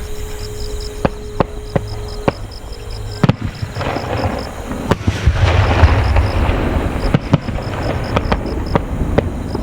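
Fireworks bursting overhead in a string of sharp bangs, with a spell of dense crackling through the middle.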